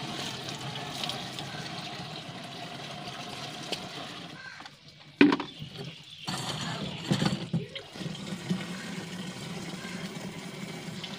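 Water poured from a plastic bucket into a backpack sprayer's tank, splashing over onto the concrete floor, a steady rush for about four seconds. About five seconds in comes a sharp knock, then a few more knocks a couple of seconds later as the bucket is put down and the sprayer is handled.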